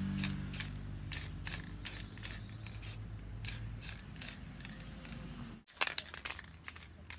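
Aerosol spray paint can sprayed in many short hissing bursts, two or three a second, onto a board.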